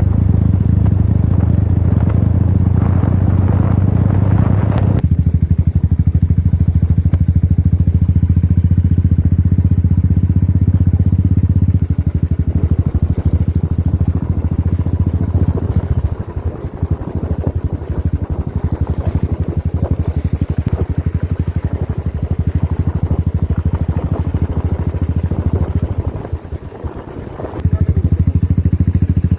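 Royal Enfield motorcycle engine running steadily on the move. The note eases off about twelve seconds in, dips briefly near the end, then picks back up.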